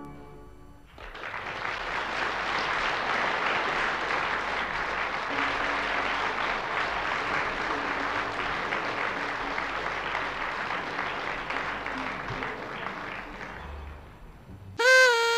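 Audience applause that starts about a second in, holds steady and fades away toward the end. A loud, steady tone cuts in just before the end.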